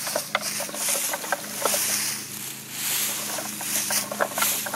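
Wooden alligator push-walker toy rolling over concrete: its wooden wheels grind and rattle with a gritty hiss while the alligators' wooden jaws clack irregularly as it is pushed along.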